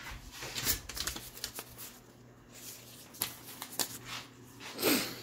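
A sheet of printer paper rustling and crackling as it is picked up and waved about: a run of short, irregular crinkles, the loudest one near the end.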